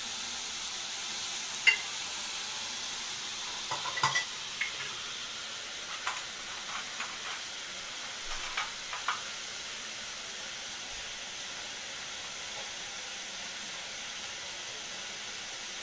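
Chopped tomatoes and onions sizzling steadily in oil in a metal kadai as they sauté down to soften. A few short clinks and knocks come in the first nine seconds or so, then only the even sizzle.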